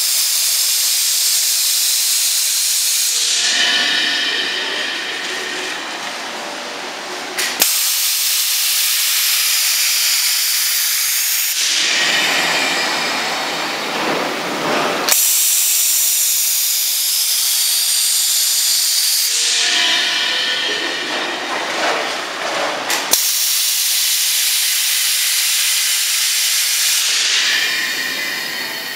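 Compressed air hissing through the solenoid valve and pneumatic cylinder of a pneumatic knife rig as it cycles. About every seven and a half seconds a sharp click of the valve switching starts a high, loud hiss, which after about three seconds gives way to a lower, rougher rush of air.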